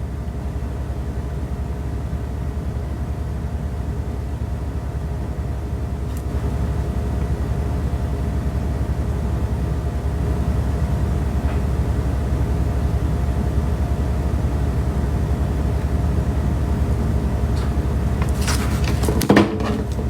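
A steady low rumble with faint steady hums above it, like a running vehicle or a machine; a voice starts just before the end.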